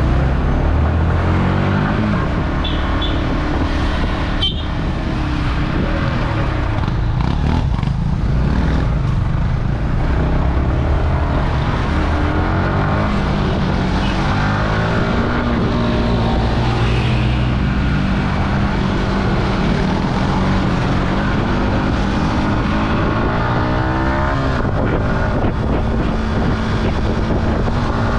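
Yamaha R15 motorcycle's single-cylinder engine running under way, its pitch rising and falling with throttle and gear changes, with wind rushing over the microphone.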